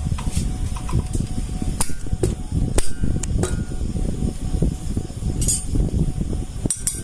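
Scattered sharp metallic clicks and clinks of hand tools and parts being handled on a motorcycle engine, over a steady low rumble.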